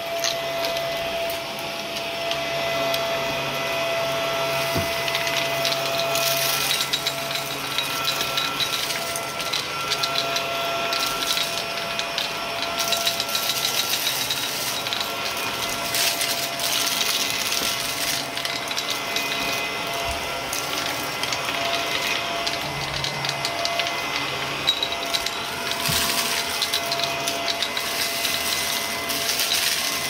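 Shark upright vacuum cleaner running over carpet: a steady motor whine with frequent crackling and crunching as grit and debris are sucked up through the brushroll.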